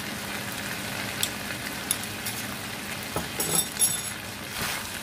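Chicken bistek sizzling steadily in a frying pan, with a few light utensil clicks against the pan. There is a brief metallic clinking a little past halfway.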